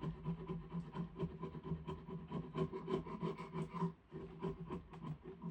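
Quick, short scraping strokes against a chunk of diamond willow wood, about four a second, as it is worked clean by hand.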